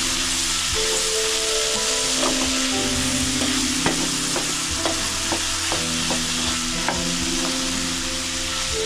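Tripe and sweet peppers sizzling in a stainless steel pan as a wooden spoon stirs them, with a run of light knocks of the spoon against the pan through the middle.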